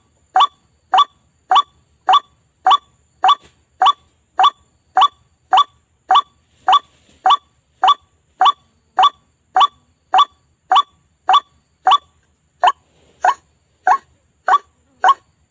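White-breasted waterhen (ruak-ruak) call, a short pitched note repeated evenly and steadily, a little under two calls a second. It is a bird-lure recording played to attract waterhens.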